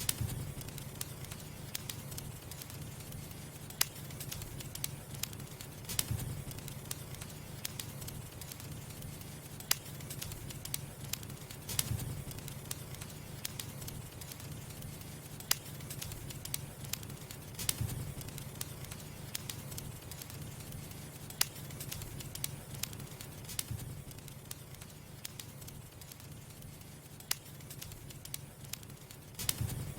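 Firewood burning: a steady low rush from the fire with scattered sharp crackles and pops from the wood, and a louder snap every few seconds.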